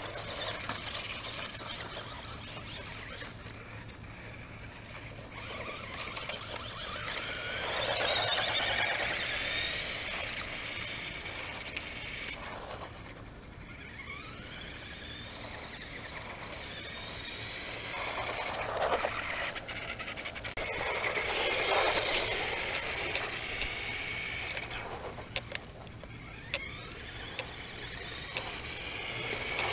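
Radio Shack Lightning toy R/C car's small electric motor and gears whining as it drives over asphalt. The pitch rises and falls with the throttle, and the sound swells twice as the car comes close.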